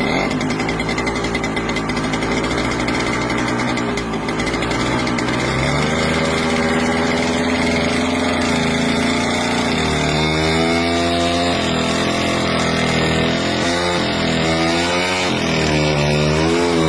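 Vintage tractor engine running steadily, then from about six seconds in revving up and down several times.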